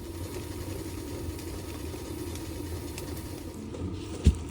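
A steady low mechanical hum, like an engine idling, with one sharp thump near the end.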